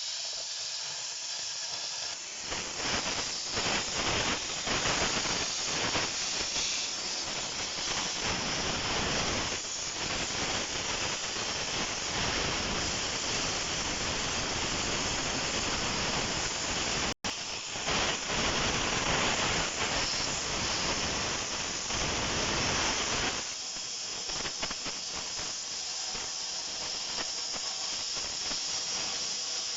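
Steady loud hissing, with a louder, rougher crackling stretch from about two seconds in until about six seconds before the end. It comes from metal being cut out along a crack in a steel bucket to bevel it for welding.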